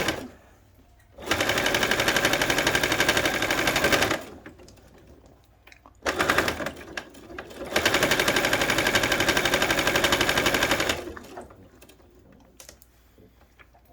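Baby Lock sewing machine running fast, top-stitching a quarter-inch seam through layered cotton and batting. It goes in bursts: about three seconds of stitching, a short spurt about six seconds in, then a longer run of about three seconds that stops near the eleven-second mark.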